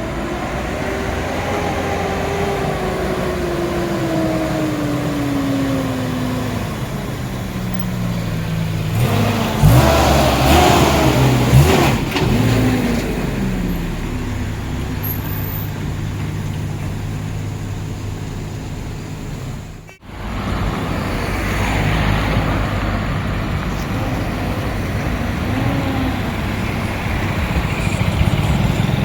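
Motor vehicle engine running with road noise: its pitch falls steadily over the first several seconds, a louder stretch of rising and falling engine pitch comes about ten seconds in, and the sound cuts off abruptly about twenty seconds in before the engine sound resumes.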